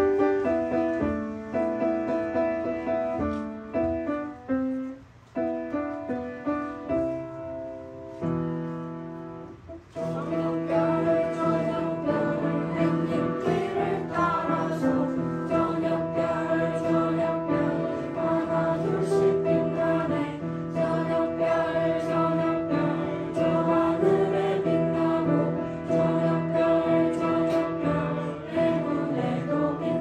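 Upright piano playing a short introduction alone, then a group of children and adults singing a song together with the piano from about ten seconds in.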